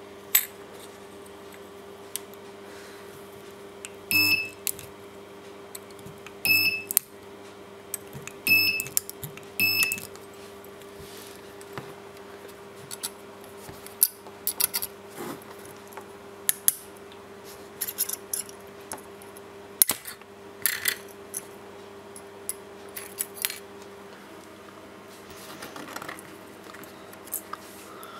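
Spot welder firing four times in the first ten seconds, each pulse a short buzz with a high tone, followed by many light metallic clicks and scrapes as the welded thin metal strip is gripped and twisted with pliers to test the welds.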